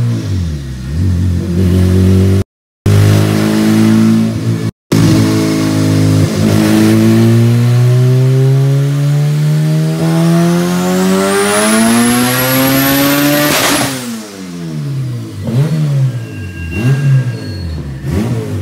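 Turbocharged Honda B18C four-cylinder at full throttle on a chassis dyno, revs climbing steadily for about eight seconds with a high turbo whistle rising alongside. Near the end the throttle shuts abruptly with a sharp burst, and the revs fall away with a few short blips.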